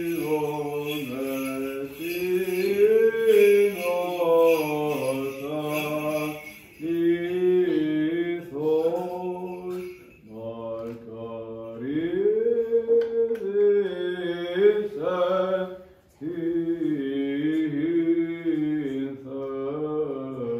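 A solo male voice singing Orthodox liturgical chant, a melodic line in long phrases broken by short pauses for breath.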